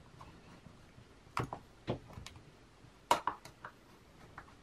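Small screwdriver driving screws into the metal front plate of a Strathearn SLC3 planar loudspeaker: a few light, scattered clicks and ticks of metal on metal, the sharpest about three seconds in.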